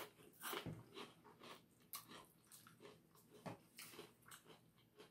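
A person chewing a mouthful of battered, deep-fried onion blossom with the mouth closed: faint, irregular wet mouth clicks and smacks.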